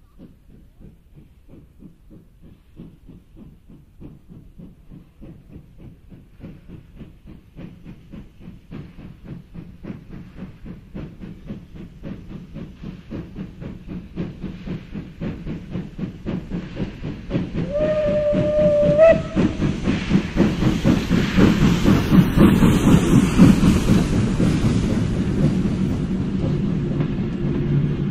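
kkStB class 310 four-cylinder compound steam locomotive 310.23 working an express train: its exhaust beats come evenly and grow steadily louder as it approaches, and it sounds its whistle once for just over a second about two-thirds of the way through. It is loudest as the engine passes, and then the carriages roll by.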